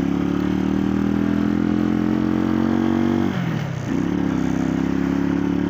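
Motorcycle engine running at steady revs while riding, its note dropping sharply a little past halfway and climbing back within about half a second, as at a gear change.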